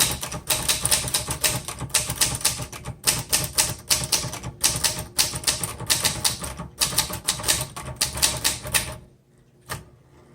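Olivetti-Underwood 21 manual typewriter being typed on: a quick run of type bars striking and keys clacking, which stops about nine seconds in, leaving only a few scattered clicks.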